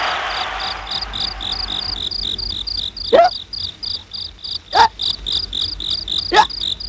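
Applause fading out, then cricket-like chirping, about five short high chirps a second, with three short sweeping sounds about a second and a half apart standing out above it.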